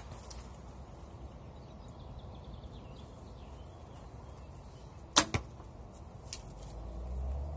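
A traditional bow shot with a thumb release: a single sharp crack of the bowstring about five seconds in, followed a fifth of a second later by a second, quieter crack. A low rumble swells near the end.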